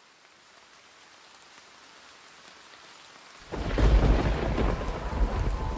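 Rain-and-thunder ambience from a background music track, fading in softly, then coming in heavily with a deep rumble about three and a half seconds in. A few held musical notes enter just before the end.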